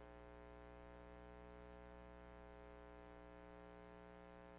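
Near silence: a steady electrical hum from the sound system, with a faint high whine over it.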